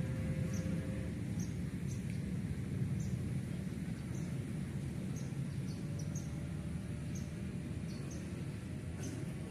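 Outdoor ambience: a steady low rumble with short, high chirps at irregular intervals, roughly one or two a second.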